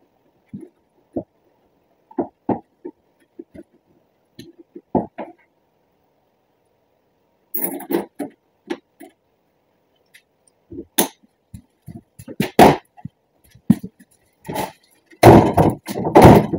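Irregular knocks, clicks and thuds of plastic and metal truck parts being handled and fitted at the front of a pickup as its grille goes back on, with a louder burst of knocking and rattling near the end.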